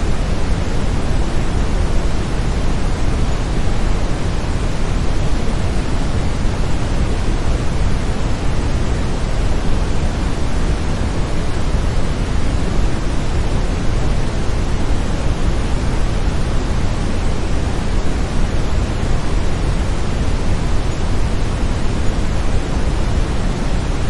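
Steady brown noise: an even, deep hiss weighted toward the low end, unchanging throughout.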